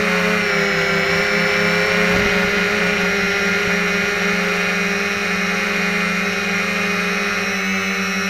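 Quadcopter's four SunnySky X2212 brushless motors and propellers whining together in flight, a buzzing mix of several tones holding a fairly steady pitch.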